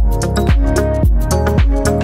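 Background music with a steady beat of about two low thumps a second under held notes.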